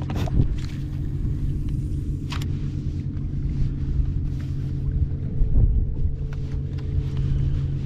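A boat motor running steadily at low revs, a low even drone. A couple of light knocks come near the start and about two and a half seconds in.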